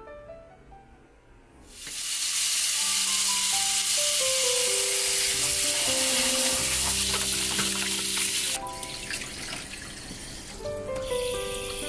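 Kitchen tap running into a stainless steel bowl of vegetables in a sink as they are rinsed by hand, a steady splashing hiss that starts about two seconds in and stops abruptly about three seconds before the end. Soft piano background music plays throughout.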